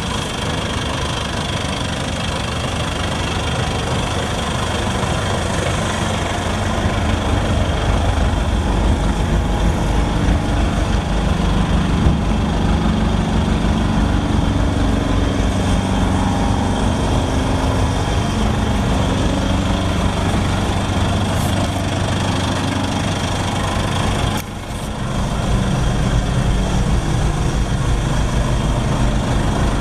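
Aircraft towing tractor's engine idling steadily, its exhaust running close by.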